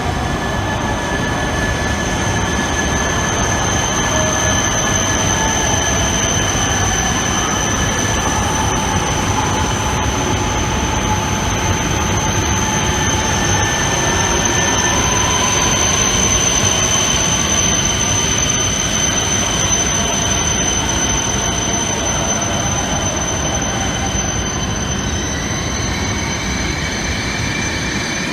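Shinkansen train moving along a station platform: steady running noise with a continuous high-pitched squeal, and a fainter whine that drifts in pitch.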